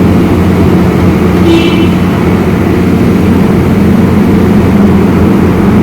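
Ford Expedition engine running steadily at idle.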